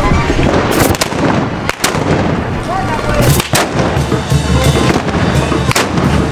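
A string of sharp gunpowder blasts, about six in all, most of them in the first few seconds, typical of the black-powder muskets fired by the Huejotzingo carnival battalions. A brass band plays underneath.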